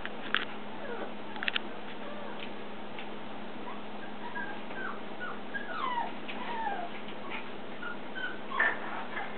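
Havana Silk Dog puppies whimpering as they play: a string of short, high, squeaky whines that fall in pitch, thickest from about four to seven seconds in. A couple of sharp clicks come near the start.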